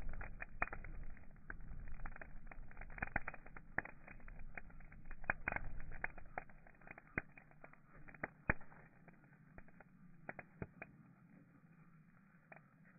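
Wood fire in a metal fire box crackling and popping. The sharp snaps come thick at first and thin out after about nine seconds, over a low rumble that fades about halfway through.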